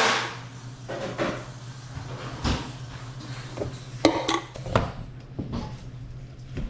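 Dishes and cutlery clattering: a handful of separate knocks and clinks, the sharpest about four seconds in, over a steady low hum.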